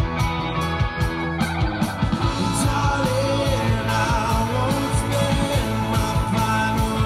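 Indie rock band playing: drums, electric guitars and bass, with a sung vocal line coming in about two and a half seconds in.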